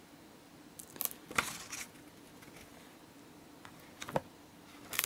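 Pages of a hardcover book being handled and turned: a few faint, short papery rustles and clicks, in two clusters about a second in and again near the end.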